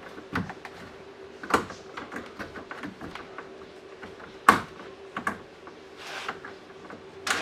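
Scattered clicks and knocks of hand tools and plastic bumper trim being handled while the last screw of a front lip spoiler is fitted, the loudest knock about four and a half seconds in, over a faint steady hum.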